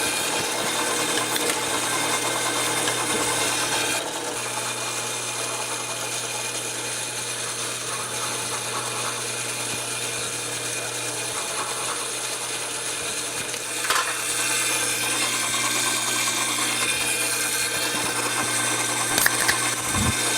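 A 1-horsepower Craftsman drill press running steadily, its bit drilling into a 2x4. The sound drops a little about four seconds in and picks up again with a knock about two-thirds of the way through.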